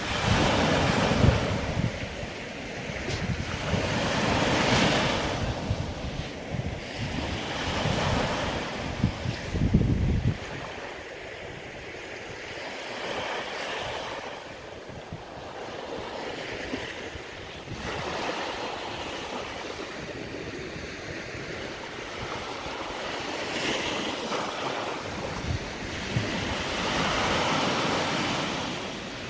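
Waves breaking and washing up a sandy beach, swelling and fading every few seconds. Wind buffets the microphone with a low rumble for the first ten seconds or so and again near the end.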